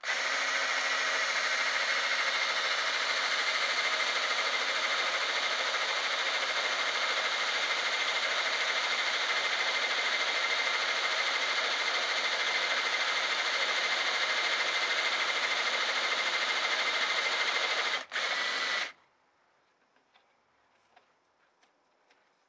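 High-speed motor of a lathe tool-post drill running with a steady high whine while its center drill is fed into the side of a hardened steel shaft. It cuts out about 18 seconds in, starts again for about a second, then shuts off.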